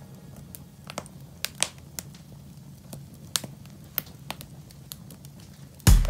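Wood fire burning in a brick fire pit, crackling with irregular sharp pops over a low steady rumble of flame. Acoustic guitar music comes in loudly just before the end.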